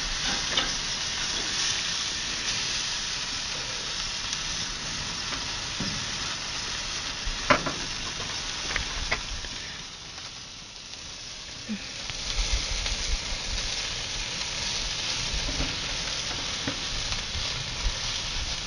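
Steaks sizzling on a grill, a steady crackling hiss, with a few sharp clicks of a metal fork against the grate and pan.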